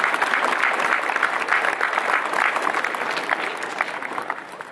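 A crowd applauding in a welcome, many hands clapping at once. The clapping thins out and dies away near the end.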